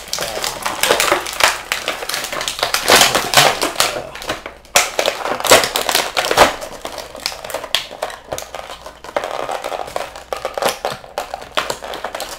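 Plastic packaging crinkling and clicking as an action figure is worked out of its plastic tray: a dense run of rustles and sharp clicks.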